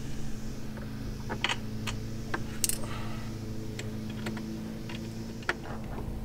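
Irregular small metallic clicks and taps as screws and T-nuts are worked by hand into the aluminum channels of a Goose Gear platform panel. A steady low hum runs underneath.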